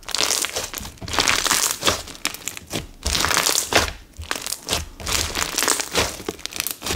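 Slime full of mixed-in beads being squeezed and folded by hand, giving bursts of crinkly crackling and popping air pockets, several squeezes with short pauses between. The crunch is held back by the large amount of clear base in the slime, by the maker's own account.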